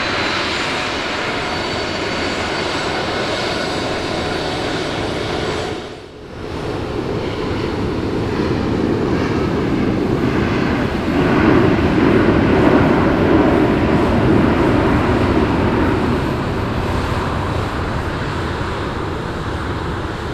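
Jet airliner on landing approach: engine noise and rushing air swell to their loudest about halfway through, then ease off. It breaks off briefly about six seconds in.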